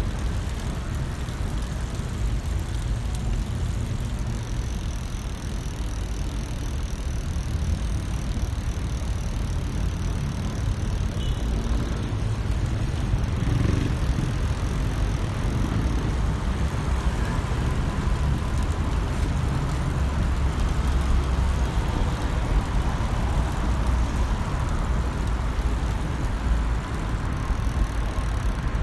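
Steady wind noise on the microphone of a bicycle-mounted camera while riding, heavy in the low end, with tyre and street noise beneath.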